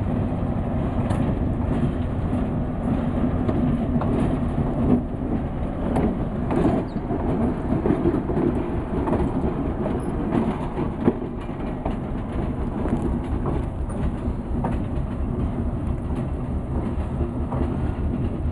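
Diesel switcher locomotive rolling past at close range, its diesel engine running steadily, with irregular clacks from its wheels on the track.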